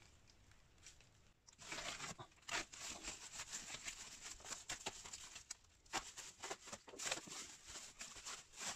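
Plastic wrap and tape being torn and peeled off a parcel padded with bubble wrap: irregular crinkling and crackling with sharp clicks, starting about a second and a half in.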